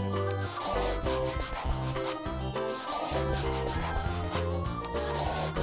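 Scratchy rubbing strokes of a coloring-in sound effect, like a crayon scribbling on paper, swelling about every two seconds. Steady low musical notes run underneath.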